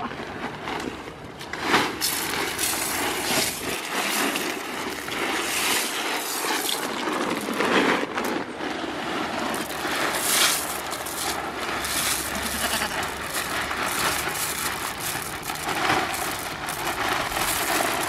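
Fine white gravel poured from a plastic sack onto muddy ground, a continuous gritty rush with several louder pours, along with the crinkle of the sack being handled.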